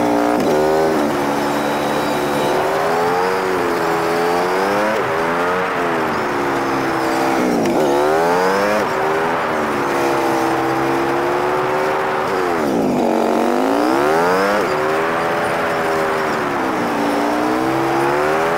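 Motorcycle engine heard from the rider's seat, its pitch rising and falling with the throttle through a run of curves; twice, about eight and thirteen seconds in, it drops low and then climbs sharply as the bike slows and accelerates again.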